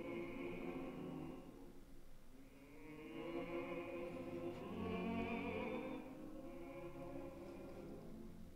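Film soundtrack music: a choir singing a slow, sustained melody with orchestra, dipping and then swelling again about three seconds in.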